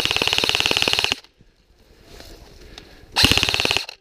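Airsoft rifle firing full-auto: a rapid, even stream of sharp clicks in two bursts, the first stopping about a second in and a shorter one near the end.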